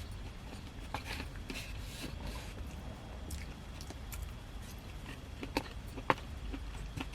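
Someone eating: chewing with scattered small clicks and taps, the sharpest about six seconds in, over a low steady background hum.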